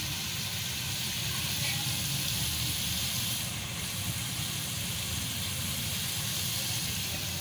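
Steady hiss of taro-root (arbi) masala sizzling in mustard oil in an aluminium pot, with no stirring, over a low steady rumble. The oil has risen to the top, the sign that the masala is fully cooked.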